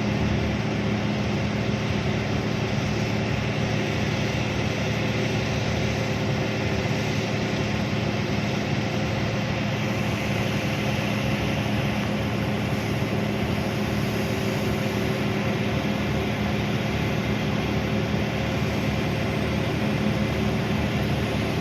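Hitachi 1200 excavator's diesel engine running steadily at a constant pitch.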